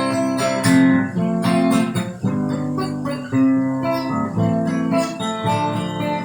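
Acoustic guitar playing an instrumental break between sung verses, plucking melody notes over strummed chords.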